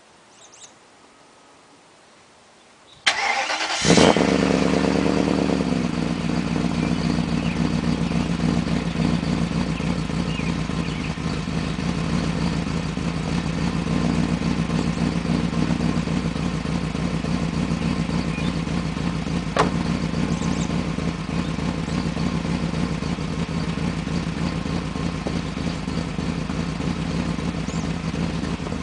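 BMW 530i's V8 with a Magnaflow exhaust cranked by the starter about three seconds in. It catches with a brief rev about a second later, then settles into a rough, uneven idle caused by a vacuum leak. One sharp click sounds partway through.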